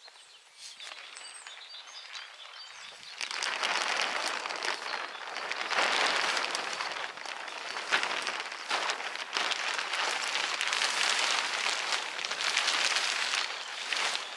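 Large black 150-micron silage tarp being dragged and folded over, the plastic sheet rustling and crackling loudly from about three seconds in. Before that, only quiet outdoor ambience.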